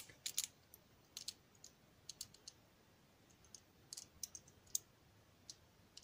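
Light, irregular metallic clicks and ticks of steel tweezers working inside a Yale Superior Eurocylinder, picking out the driver pins during disassembly.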